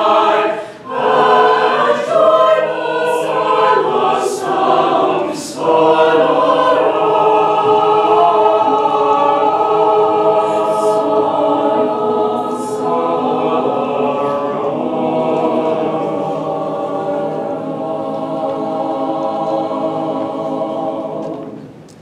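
Mixed choir singing, with words and sharp s-sounds in the first few seconds, then holding one long closing chord from about six seconds in that fades out just before the end.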